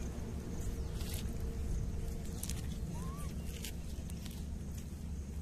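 Outdoor ambience around a troop of rhesus macaques eating watermelon: a steady low rumble with a few short sharp clicks and one brief chirp about three seconds in.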